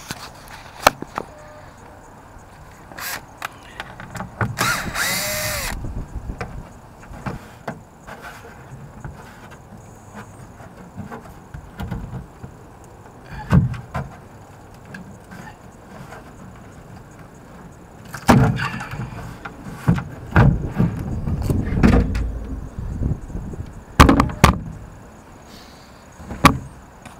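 Handling of a boat's deck storage compartment: plastic and fiberglass knocking, clicking and scraping as the liner tub is worked loose and lifted out. About five seconds in there is a short pitched squeal that bends in pitch, and the loudest knocks come in a cluster in the last third.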